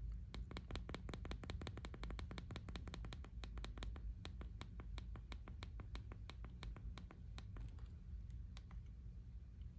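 The iPhone 15 Pro's action button clicking, pressed rapidly again and again through the Torras slim case's metal button cover. There are several clicks a second, thinning out near the end.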